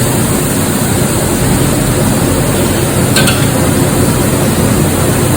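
Large gas stove burner running with a loud, steady rush under a big cooking pot, with a faint brief click about three seconds in.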